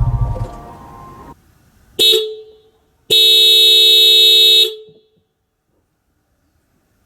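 Horn of a Honda Civic Type R (FK2): one short toot about two seconds in, then a steady blast lasting about a second and a half. A low engine sound fades out in the first second.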